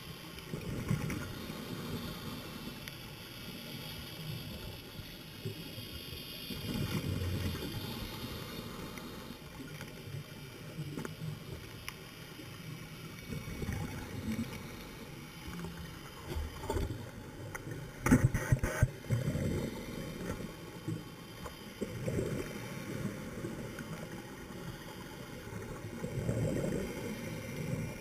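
Underwater sound of a scuba diver's breathing: exhaled bubbles rumble past the camera housing every few seconds over a steady hiss. A quick cluster of sharp clicks and bubbling about two-thirds of the way through is the loudest moment.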